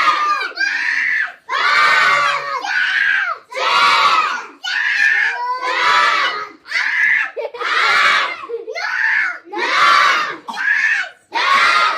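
Loud shouting voices from a crowd, coming in short shouts about once a second.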